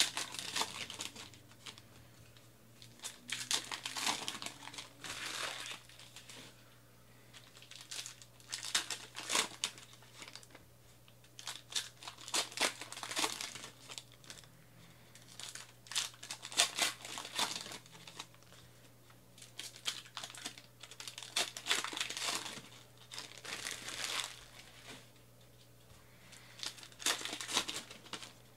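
Trading card pack wrappers being torn open and crumpled by hand, in repeated bursts of crinkling and tearing every couple of seconds.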